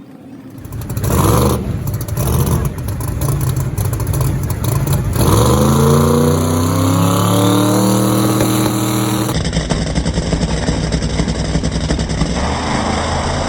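Drag-racing car's engine, loud and choppy at first, then climbing in pitch as the car accelerates hard; after an abrupt change near the two-thirds point it runs on steady and loud.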